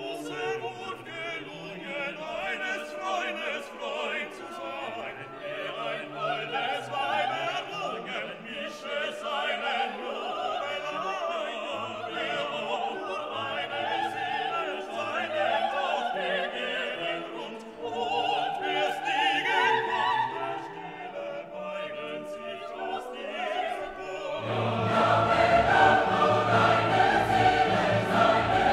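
Background music: classical music with operatic singing and choir over an orchestra, swelling louder and fuller near the end.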